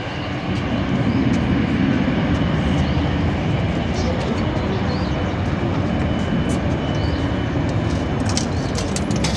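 Four CFM56 turbofan engines of an Airbus A340-300 spooling up for the takeoff roll: a loud, steady low rumble that rises about half a second in and then holds.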